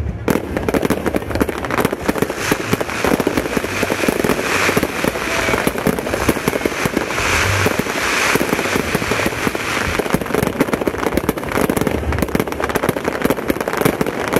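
Aerial fireworks bursting overhead: a continuous, dense crackle of many rapid pops from crackling stars, with deeper booms now and then, around eight and twelve seconds in.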